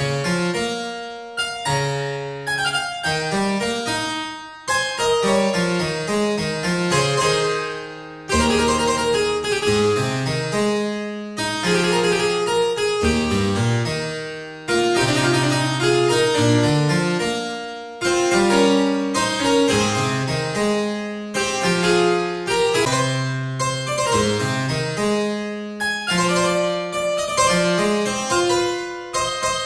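Background music: a keyboard piece of quick, plucked notes that start sharply and die away.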